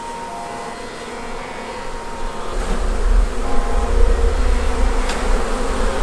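Honey bees of a captured swarm buzzing around their hive box, several overlapping steady hums. A low rumble comes in about two and a half seconds in and stays louder than the buzzing.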